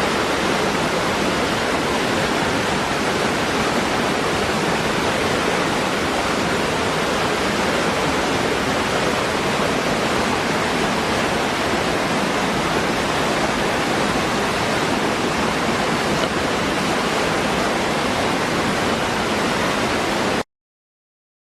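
A waterfall's steady rush of falling water, an even roar with no breaks, which cuts off suddenly near the end.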